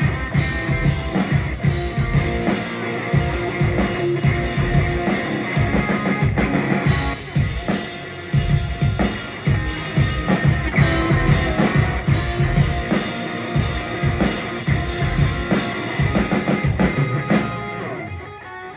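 Live rock band playing an instrumental passage: electric guitars over a pounding drum kit, thinning out and dropping in level near the end.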